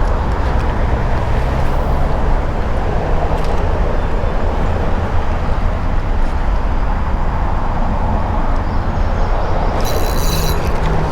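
Steady low rumble of highway traffic passing overhead, with a brief high rattle about ten seconds in.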